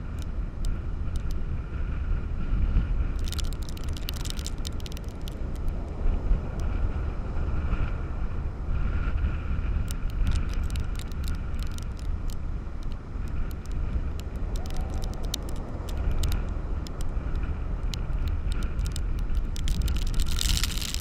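Strong storm wind buffeting the microphone, a heavy, uneven rumble, over the steady wash of breaking surf, with scattered sharp ticks throughout.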